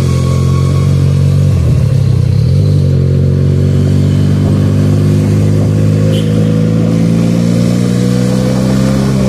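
Benelli 300 parallel-twin motorcycle engine running under way, its note dipping briefly about two seconds in, then climbing slowly as the bike gathers speed.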